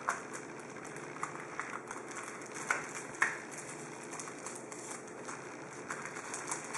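Card packs and a cardboard box tray being handled: wrappers rustling and packs sliding out of the tray, with scattered light clicks, two sharper ones about three seconds in.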